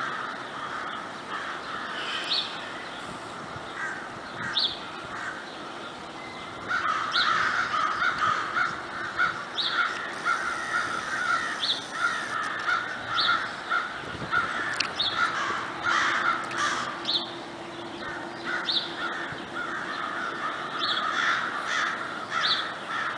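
A flock of crows cawing, many calls overlapping, sparse at first and growing dense about a third of the way in. Short higher notes recur every second or so over the cawing.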